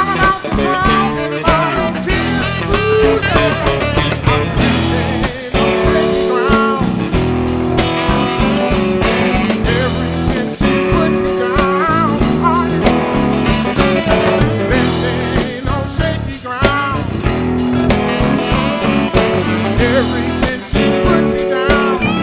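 Blues band playing an instrumental passage, a guitar taking the lead with bent notes over the rhythm section.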